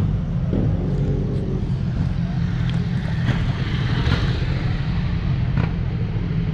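Motorcycle engine idling steadily, a low even rumble.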